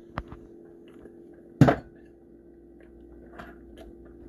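A person drinking from an aluminium energy drink can: a light click near the start, one short loud rush of sound about one and a half seconds in, then faint small drinking sounds.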